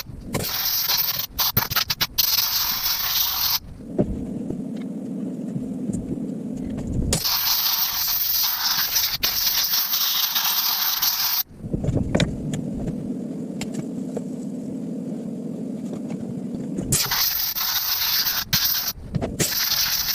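Spray nozzle hissing in three long bursts of about four seconds each, one at the start, one about seven seconds in and one near the end, while the clutch and oiler area of a Stihl MS290 chainsaw is cleaned out. A steady low hum runs between the bursts.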